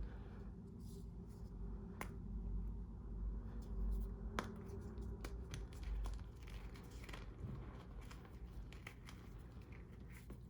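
Reformed gym chalk crushed by hand: scattered small crunches and crackles, with a few sharper snaps about two, four and a half and five seconds in. The chalk is crunchy because it is not fully dried.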